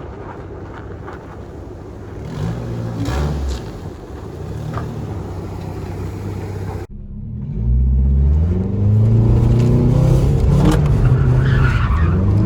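Car engine revving, its pitch rising and falling repeatedly. There is an abrupt cut about seven seconds in, after which the engine is louder and keeps revving up and down.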